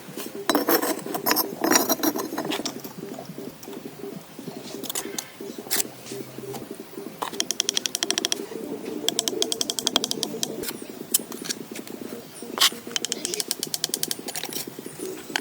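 Dove cooing repeatedly, with sharp knocks near the start and later on, and a fast run of clicks lasting about three seconds in the middle.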